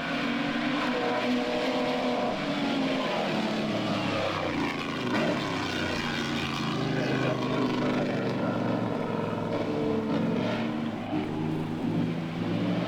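Racing engines of two vintage Mercedes-Benz Grand Prix cars running hard, their loud engine notes overlapping and sliding up and down in pitch.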